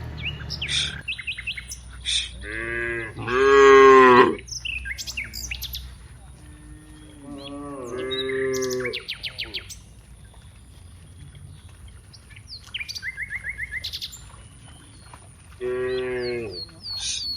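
Cows mooing: three long moos, about two seconds in, about seven and a half seconds in, and near the end, the first the loudest. Birds chirp briefly between the moos over a steady high whine.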